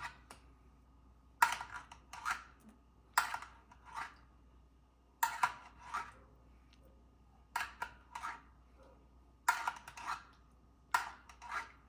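A utensil clinking and scraping in a metal roasting pan while pan juices are scooped up and spooned over roast chicken, in six short bursts of a few sharp clinks, one about every 1.5 to 2 seconds.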